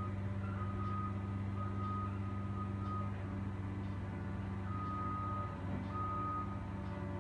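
Construction-site backup alarm beeping about once a second, with a brief pause midway, over the steady low running of a heavy machine's engine.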